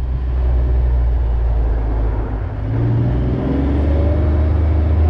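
Kawasaki Mule Pro FXR side-by-side's three-cylinder engine running under way with a low rumble, its pitch rising a couple of seconds in as the vehicle accelerates.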